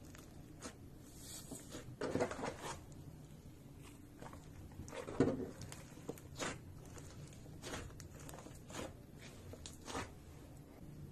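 Slime being squeezed and stretched by hand, giving irregular short sticky pops and crackles about once a second, the loudest about five seconds in.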